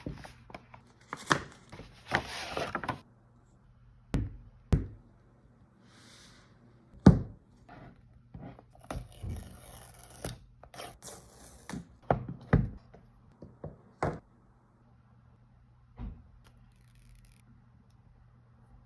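Phone box and packaging being handled and opened: scattered taps, clicks and knocks, with a few short spells of scraping and rustling, over a faint steady hum.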